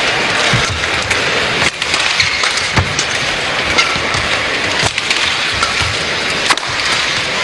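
Badminton rally: sharp cracks of rackets striking the shuttlecock, about one a second, over steady hall and crowd noise.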